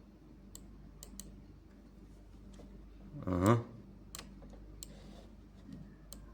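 Scattered clicks of a computer mouse and keyboard as a scope waveform is zoomed in on, over a faint steady hum. About three and a half seconds in there is a single brief, loud sound lasting about half a second.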